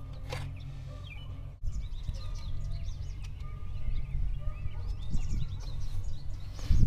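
Birds chirping over a steady low hum, with a dull thump near the end.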